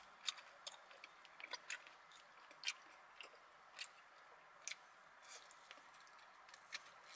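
Quiet close-up chewing of a crispy birria taco shell: irregular sharp crunches and mouth clicks, about two a second.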